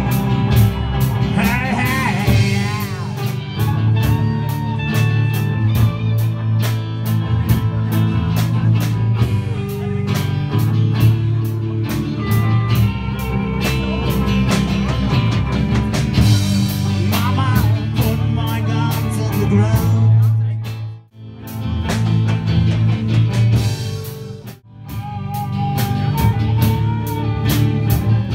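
Live rock band playing: acoustic and electric guitars over drums keeping a steady beat, with two brief breaks where the band stops short in the last third.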